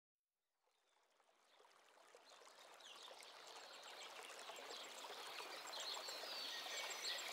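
Nature ambience fading in from silence: a steady wash of flowing water with faint bird chirps, growing gradually louder.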